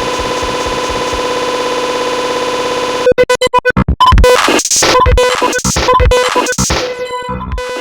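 Loud, harsh electronic noise and music layered into a cacophony. A steady buzzing tone with a fast, even pulse runs for about three seconds, then cuts abruptly into loud, choppy stuttering bursts with falling sweeps near the end.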